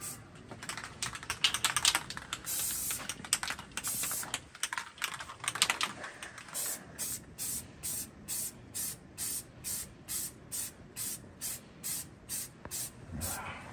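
Aerosol can of Rust-Oleum camouflage green spray paint hissing as paint goes onto a rifle. The first half has irregular longer sprays; from about halfway on come short, even puffs, about two or three a second.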